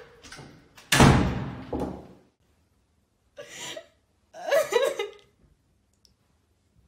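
A door slams shut about a second in. A woman then sobs in two short crying bursts.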